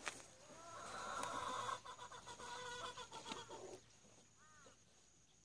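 A chicken calling: one long call of about three seconds, followed by a few short calls.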